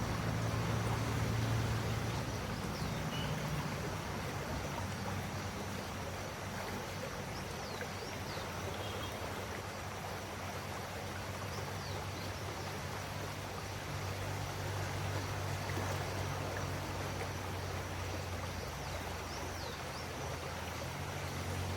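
River water flowing steadily, with a low steady hum underneath and a few faint bird chirps.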